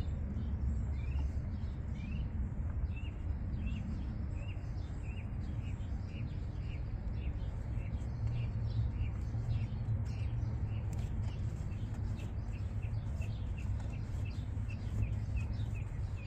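Pressurized coolant expansion tank cap being slowly loosened on a warm engine, air escaping in a long series of short rising chirps that come faster towards the end, over a steady low rumble: the cooling system's pressure venting off.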